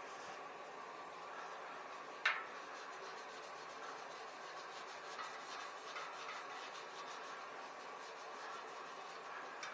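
Scouring pad scrubbing rust off a bicycle wheel rim: a quiet steady rubbing in repeated strokes, with one sharp tap about two seconds in.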